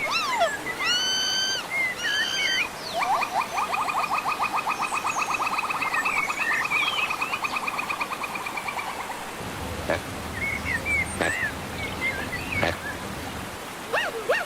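Monkey calls: a few high, arching whistle-like cries, then a long fast trill lasting about six seconds, ending in a few sharp clicks.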